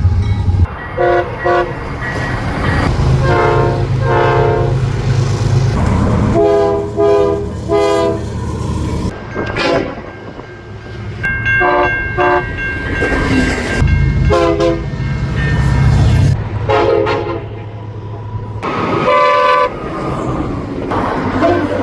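Train air horns blowing a series of short and long chord blasts. The horns change abruptly from one stretch to the next as different trains sound off, over the low rumble of the trains.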